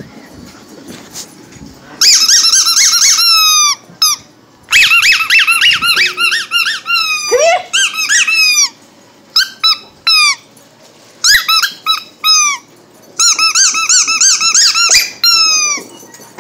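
Rubber squeaky toy ball squeaked over and over in quick runs of high squeaks, some dropping in pitch at the end, with short pauses between runs.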